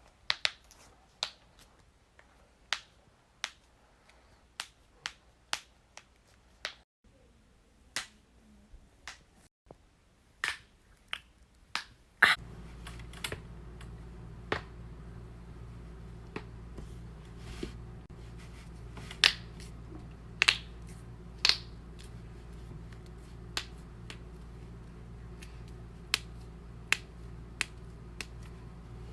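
Body joints cracking: a long run of separate sharp pops and cracks at irregular intervals, some much louder than others. About twelve seconds in, a steady low hum starts beneath the pops and stays.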